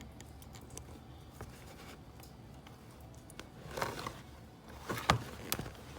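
Faint handling noises: a few light clicks and rustles in the second half as the removed, torn motor mount is turned over and handled.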